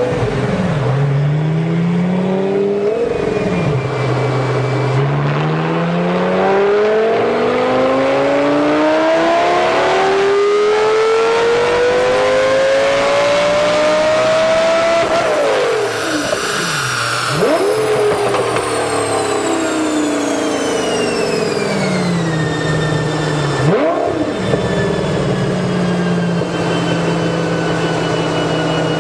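Lamborghini engine on a chassis dynamometer: a short rev and drop, then a long full-throttle pull with the pitch climbing steadily for about ten seconds before it is cut off sharply. A quick blip follows, then the revs fall away gradually with a high whine sliding down in pitch, another short blip, and the engine settles to a steady idle.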